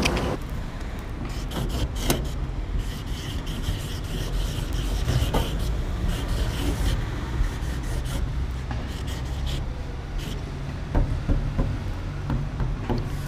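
Marker tip rubbing across a wooden board while a tag is written, with scattered small clicks over a steady low rumble.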